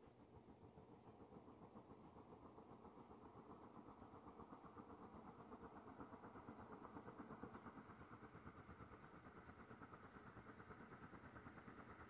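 Airmaster Industrial ceiling fan running, its spinning blades giving a soft, evenly pulsing whoosh of moving air. The whoosh grows louder and rises a little in pitch over the first half as the fan speeds up, then holds steady.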